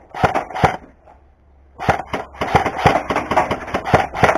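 Airsoft firefight: rapid sharp cracks, several a second. A short run of cracks, a pause of about a second, then a dense irregular stream of cracks.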